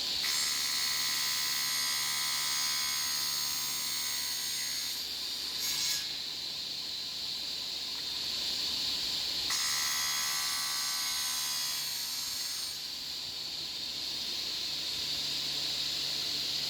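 An electric woodworking machine running steadily, with a higher whine coming in twice for a few seconds each.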